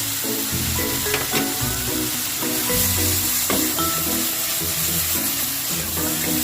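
Food sizzling as it fries in a pan, a steady hiss, under light background music with a plucked melody.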